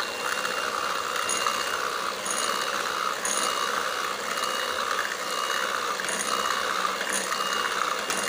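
Electric hand mixer running steadily, its beaters whisking a yellow cake mixture in a steel bowl, with a thin constant whine and light ticks about once a second.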